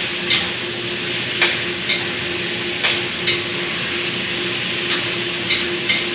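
Food sizzling in a pan as it is stir-fried, with a spatula clicking and scraping against the pan about once a second at an irregular pace.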